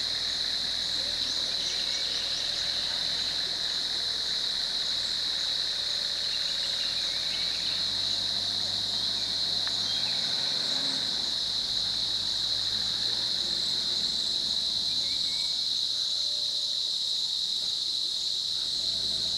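Steady, high-pitched insect chorus that does not let up, with vehicle engines idling low underneath through about the first half.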